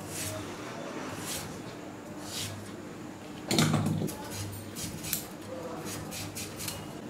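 Metal kitchen utensils and pots clinking and knocking in scattered light taps, with one brief louder sound about halfway through.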